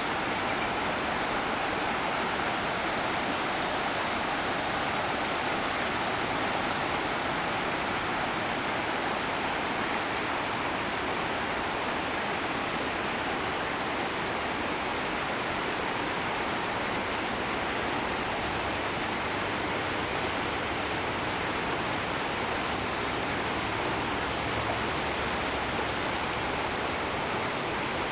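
Creek water flowing steadily, an even rushing noise.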